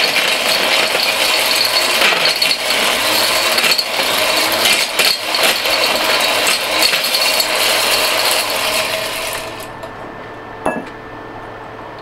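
Mighty Mill hammer-mill crusher, driven by an electric drill, with its hammers shredding metal-and-plastic electronic connectors: a loud, violent rattling clatter of many sharp impacts. It winds down and stops about nine and a half seconds in, the connectors reduced to plastic and bits of metal.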